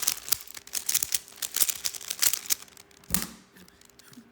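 Rubik's cube being turned fast: rapid plastic clicking and clacking of the layers, stopping about three seconds in with a single thump.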